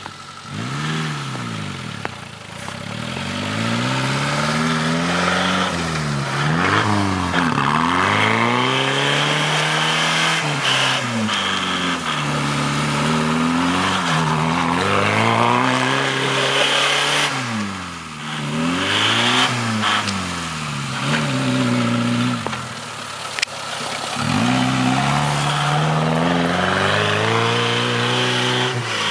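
Suzuki Vitara's engine revving up and falling back over and over as it drives and spins its wheels through snow, with a few brief lulls.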